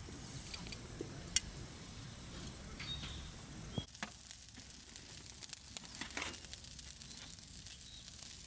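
Food frying in a pan with butter and soy sauce, a steady crackling sizzle with a few sharp taps. The sizzle gets louder about four seconds in.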